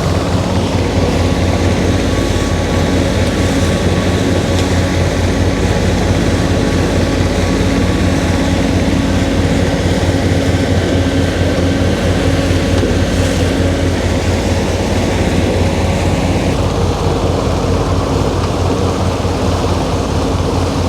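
A large catamaran's inboard engine running steadily under way, a low, even, pulsing drone.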